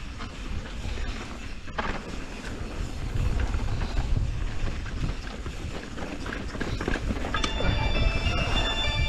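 Enduro mountain bike rolling fast down a dry dirt trail, heard from the rider's own camera: a steady low rumble of tyres on dirt and wind on the microphone, with rattles and clicks from the bike over bumps. Music comes in about seven seconds in, on top of the riding noise.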